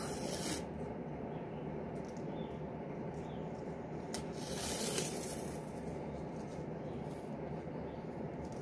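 A roll of masking tape being handled and a strip pulled off it, with a short noisy peel at the start and a longer, louder one about five seconds in, over a steady low background hum.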